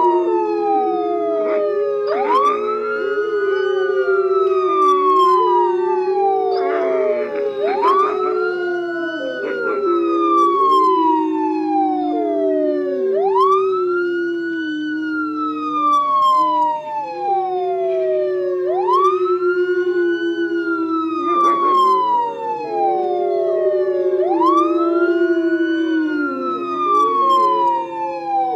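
An emergency siren wails, each cycle climbing quickly and then sliding slowly down, about every five and a half seconds. Under it, canines howl along in long, lower, slightly wavering notes.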